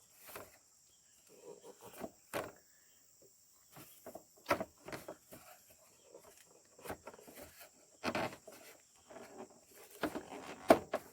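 Scattered clicks and knocks of tools and parts being handled at a lawn tractor's engine during an oil change, over a steady high chirring of crickets.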